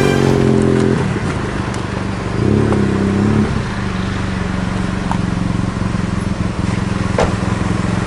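Car engine running, its note rising briefly a few seconds in, then idling steadily as the car stands. A few light clicks come near the end.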